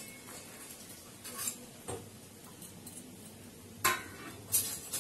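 Stainless-steel bowls clinking and knocking against each other as chopped onion and tomato are scraped from one bowl into another. There are a few separate metallic knocks, and the loudest comes just before four seconds in.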